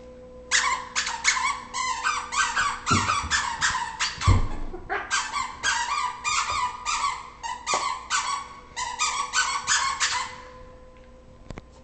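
Squeaker inside a plush teddy-bear dog toy squeaking over and over, about three squeaks a second, as a Bernese mountain dog chews it, with a short pause near the middle, then stopping shortly before the end. A couple of dull thumps come through a few seconds in.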